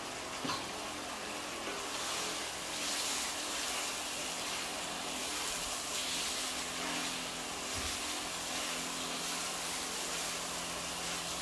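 Chilli and rendang spice paste frying in hot oil in a large wok, a steady sizzle as it is stirred with a wooden spatula, with a steady low hum underneath.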